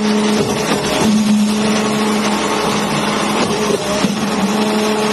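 LUTON concrete mixer pump running at work: a loud, steady machine drone with a constant hum, and a few faint knocks.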